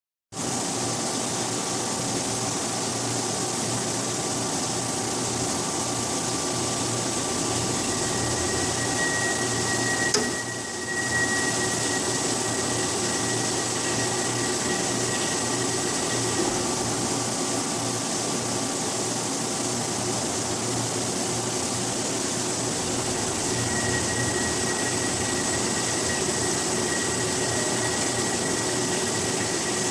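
CNC vertical machining centre (L.K. MVD-1050) running: a steady mechanical whir with constant high whining tones. A higher whine comes in and out twice, and a brief click and dip in level come about ten seconds in.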